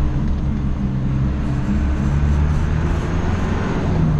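Mazda T4000 truck's engine running as it drives along unladen, a steady low drone with road noise, heard from inside the cab.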